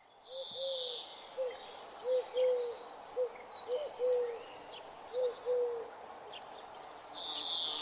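Birds calling: about ten short, low cooing notes in an irregular string, with higher chirping near the start and again near the end, over a faint steady hiss.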